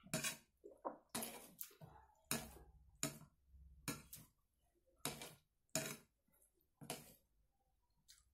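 Eating by hand from a plastic plate: about a dozen sharp, irregular smacks and clicks as rice is mixed with the fingers and chewed.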